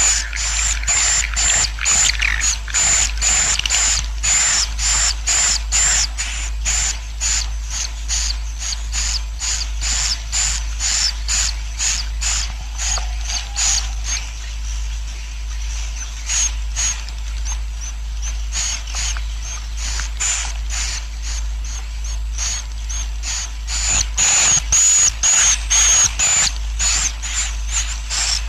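Edible-nest swiftlet colony calls, a 'suara inap' roosting-call recording played to draw swiftlets into a bird house: a dense run of sharp, high chirps at about three a second, softer through the middle and louder again near the end, over a steady low hum.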